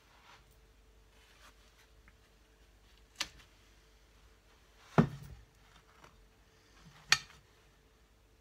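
Quiet room tone with three short, sharp knocks about two seconds apart, the loudest about five seconds in: handling noise from the aluminium engine cover in gloved hands, with the polishing drill stopped.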